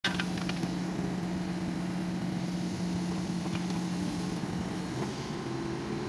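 Backhoe loader's diesel engine running steadily as the rear bucket digs in soil, with a few light clicks near the start. About five seconds in, the engine note shifts.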